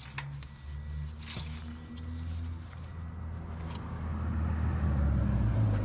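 Low, steady rumble of a motor vehicle's engine that swells louder toward the end.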